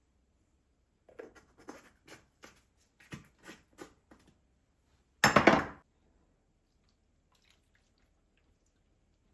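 Small household handling sounds: a quick run of light taps and clicks, then one loud, brief rushing scrape a little past five seconds in.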